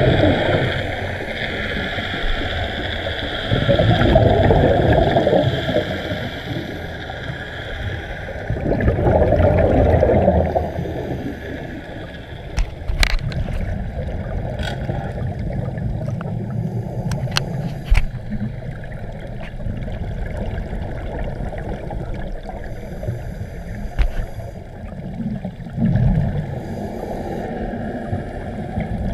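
Scuba regulator exhalation bubbles heard underwater through the camera housing, swelling in long bursts every few seconds. Several sharp clicks and knocks on the camera housing in the middle as it is handled.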